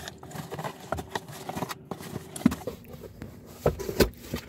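Cardboard box being handled and opened by hand: irregular taps, scrapes and knocks of cardboard, with a few louder thumps near the end.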